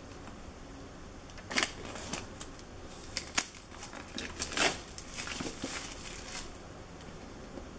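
Plastic wrapping being picked at and peeled off a cardboard phone box, with the box handled: irregular crinkles, scratches and sharp clicks, thinning out about six and a half seconds in.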